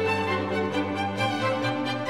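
Instrumental background music with long held notes.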